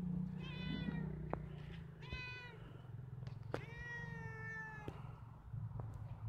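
Three pitched animal calls, each rising and then falling in pitch, the last one the longest, over a steady low hum.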